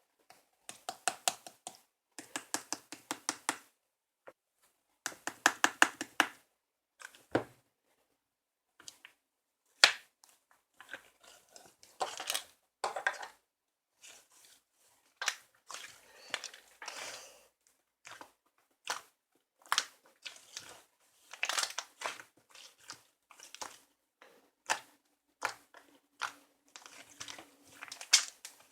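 Close, crisp crackling and crunching sounds in short bursts of rapid clicks, with pauses between them.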